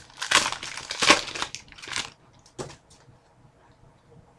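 A trading-card pack wrapper crinkling and tearing as it is ripped open, in several loud rustling bursts over the first two seconds, with a short sharp sound a little later.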